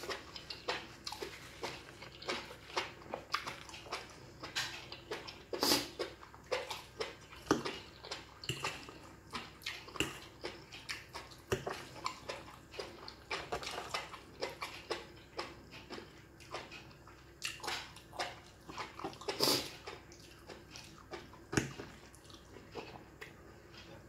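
A person eating close to the microphone: wet, irregular chewing and mouth-smacking clicks as she chews stir-fried seafood suki noodles. A few louder smacks stand out, around six, ten and twenty seconds in.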